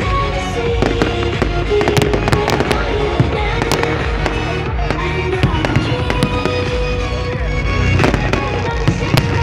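Aerial fireworks exploding overhead in an irregular string of sharp bangs and crackles, with music playing underneath.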